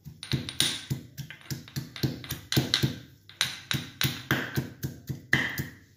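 Stone pestle pounding garlic cloves and ginger in a stone mortar, repeated knocks at about four strokes a second, crushing them finely.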